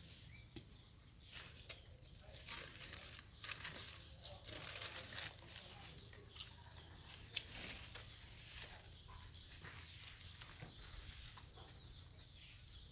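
Faint crackling and rustling of dry leaf litter with scattered sharp clicks, busiest for a few seconds near the start, as macaques move and handle each other on the ground.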